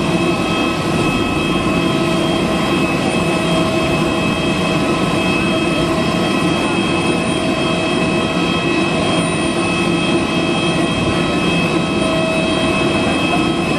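Steady whine of a parked Airbus A320's auxiliary power unit, a jet-turbine noise with several high steady tones that holds unchanged throughout.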